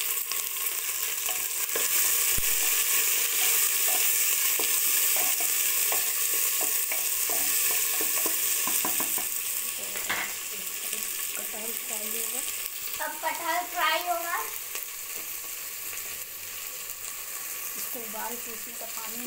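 Sliced onions sizzling as they fry in hot oil in a pressure cooker pot, stirred and scraped with a wooden spatula. A short voice breaks in about two-thirds of the way through.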